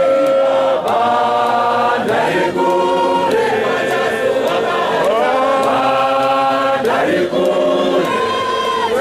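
Men's church choir singing a hymn chorus without instruments: many voices together in long held notes that slide up and down between pitches, phrase after phrase.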